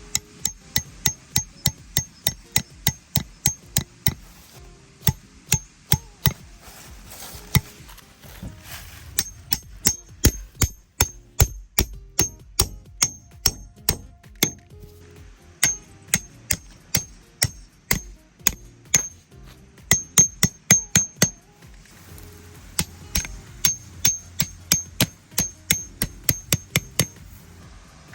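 Tent stakes being driven in with a hammer: runs of sharp metal-on-metal strikes, about two to three a second, each with a bright ring, broken by short pauses.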